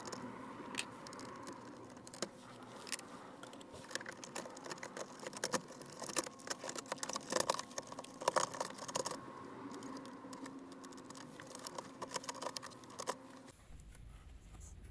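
Irregular light clicks and rattles of small parts being handled, clustered in the middle, over a faint steady hum.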